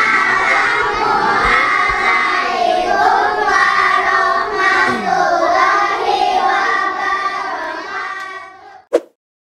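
A group of young schoolchildren singing together, fading out about eight seconds in, followed by a single short blip.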